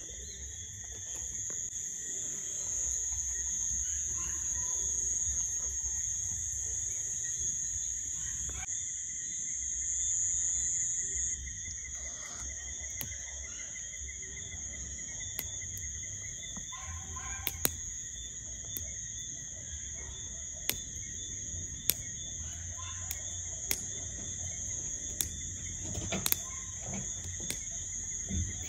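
Steady high-pitched chorus of night insects, several droning tones layered together; one of the tones stops about eleven seconds in. From about halfway on, scattered single sharp clicks sound every second or two.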